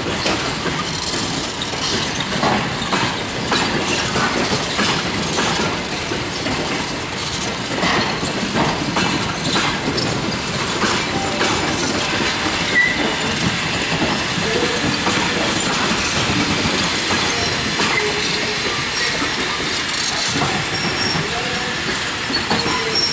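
Coaches of an arriving passenger train rolling past on the track, their wheels clacking in a steady run of clicks over the rail joints, with light wheel squeal in the second half.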